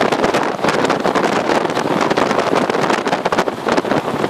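Strong gusty wind buffeting the microphone: a loud, continuous rush broken by rapid crackles.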